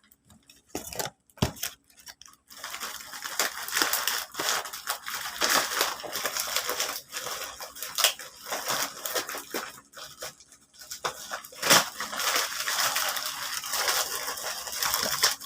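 Gift wrapping being handled and torn open: rustling and tearing with a few sharp clicks.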